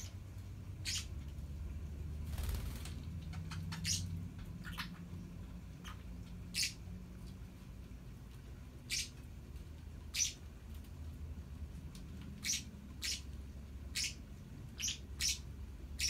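Small pet parrots giving short, sharp, high chirps, about a dozen scattered irregularly, over a low steady hum. There is a brief rustle about two and a half seconds in.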